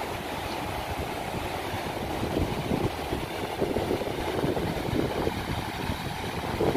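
Waves breaking on a sandy shore: a steady rushing noise with an uneven low rumble underneath.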